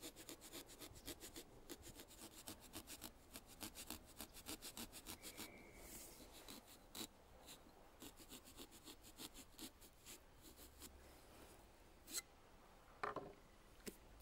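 Small serrated pumpkin carving saw sawing through pumpkin rind and flesh to cut the lid, a faint, fast run of strokes at about four a second. Two sharper knocks near the end.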